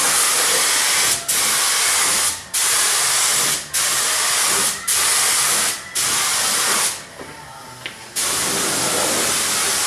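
Gravity-feed paint spray gun hissing in bursts of about a second each, one per trigger pull, as it lays on clear coat. There are seven bursts with short breaks between them, and a longer break a little over a second long shortly before the last one.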